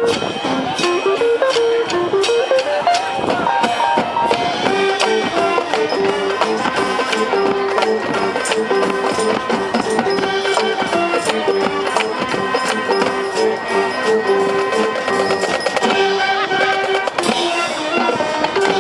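High school marching band playing a tune, with percussion keeping a steady beat under a stepping melody.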